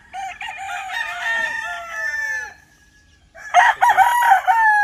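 Gamefowl roosters crowing: two full crows, each ending in a falling note. The second starts about three and a half seconds in and is louder than the first.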